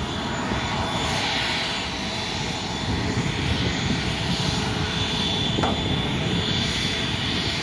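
Jet engines of a GOL Boeing 737 MAX 8 running steadily as the airliner rolls along the runway, a dense rushing noise with a faint high whine. A single short click sounds a little after halfway.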